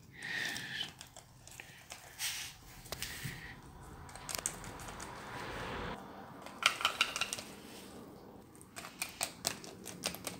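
Small plastic clicks and taps, in clusters, with a soft rustle in the middle, as Littlest Pet Shop toy figurines and set pieces are handled and moved by hand.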